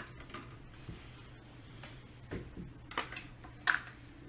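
Quiet handling sounds as a vent closer is pushed into a bicycle helmet's vent: soft rustles, then a few short clicks and taps in the second half, the sharpest a little before the end.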